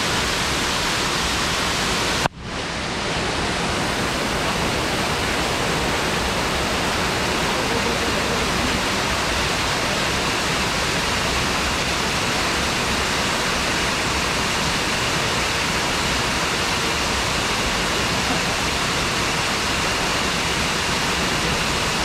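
Waterfall pouring steadily: a dense, even rush of falling water close to the microphone. The sound drops out sharply for a moment about two seconds in, then comes back.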